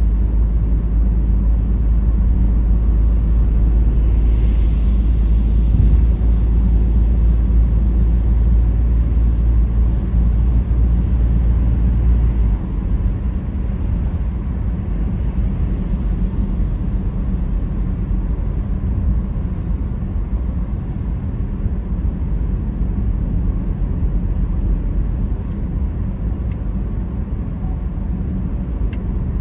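Car driving, with a steady low rumble of engine and tyres. The deepest part of the rumble drops off abruptly about twelve seconds in.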